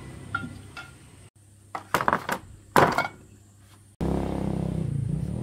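Metal tools and parts clinking and knocking in handwork: a few light clinks, then several sharp metallic strikes, the loudest near the middle. About four seconds in, a steady low machine hum starts abruptly.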